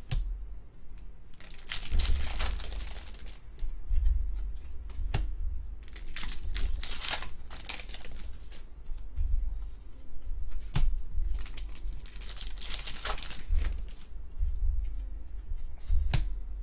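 Trading cards being handled and shuffled through by hand: papery rustling and crinkling comes about a second at a time every few seconds, with a few sharp clicks and low bumps of hands near the microphone.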